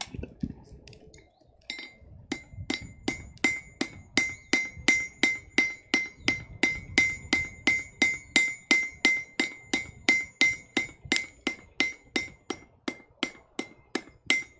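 Blacksmith's hammer striking mild steel on an anvil in a steady forging rhythm, about three blows a second, each with a bright ring. The hammering starts about two seconds in.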